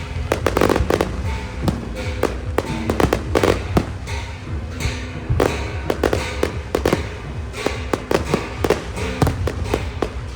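Aerial fireworks going off in a rapid, irregular series of sharp bangs and crackles, some in quick clusters, over music playing in the background.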